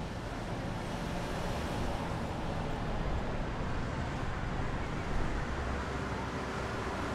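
Steady street traffic noise from cars driving past, with a brief swell about five seconds in.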